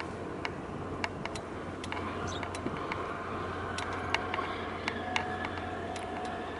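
Harbour ambience: a steady low hum under an even background noise, with many scattered sharp clicks and, from about four seconds in, faint steady tones.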